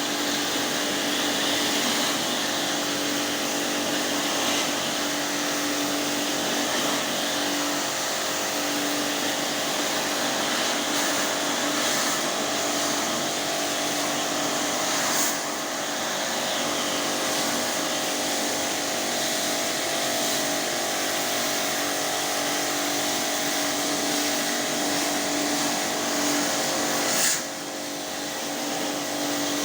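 Portable high-pressure washer pump running steadily with a hum under the hiss of its water jet, dipping briefly twice, about halfway through and near the end.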